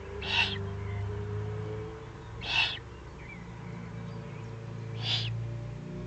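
Eurasian eagle-owl chick begging: three short, hoarse hissing rasps about two and a half seconds apart, over a low steady hum.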